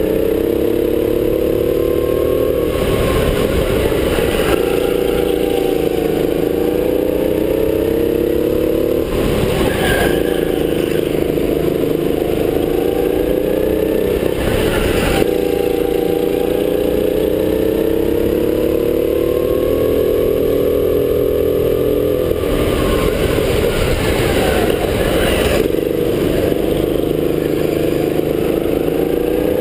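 Racing go-kart driven at speed with the microphone on board, its motor note rising and falling as it speeds up and slows for corners. The note is broken several times by short stretches of scraping and clatter.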